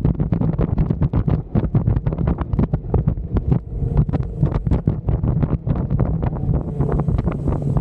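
Off-road vehicle driving, its engine a steady low drone under heavy wind buffeting on the microphone, which comes as rapid, irregular crackles.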